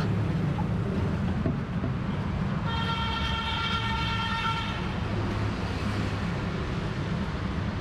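Street traffic with engines running steadily, and about a third of the way in a vehicle horn sounds one steady note held for about two seconds.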